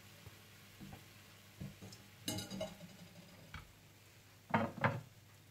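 Dishes and utensils being handled in a kitchen: a few light clicks, a ringing clink a little past two seconds in, and two louder knocks about a quarter second apart near the end.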